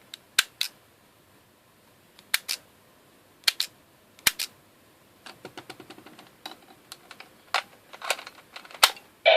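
Sharp plastic clicks of Zyudenchi toy batteries being handled and snapped into a plastic sound-effect toy: several clicks in pairs, then a run of small rapid clicks about halfway through, and a few louder single clicks near the end.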